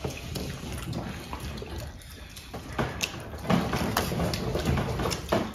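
Eating sounds from people having burgers and chips: chewing, with irregular small clicks and rustles of the takeaway paper wrapping.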